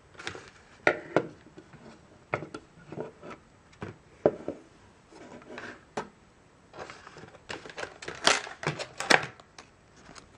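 Clear plastic clamshell packaging and a plastic battery charger being handled: irregular crinkles, clicks and knocks, busiest about eight to nine seconds in.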